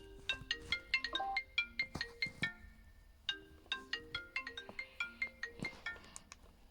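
A mobile phone ringtone playing a melody of quick, short notes; the phrase breaks off about three seconds in and starts over.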